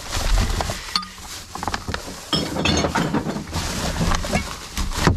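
Plastic rubbish bag crinkling and rustling as gloved hands dig through it, with light clinks of containers knocking together inside.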